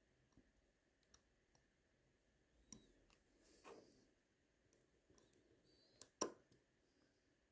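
Faint, scattered clicks and taps of small watchmaking tools, a screwdriver and tweezers, against the parts of a Miyota 8215 movement. The sharpest click comes about six seconds in, with a brief soft rustle shortly before the middle.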